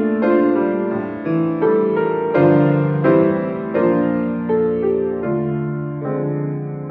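Solo piano playing a slow piece, a new chord or note struck about once a second and left to ring and fade.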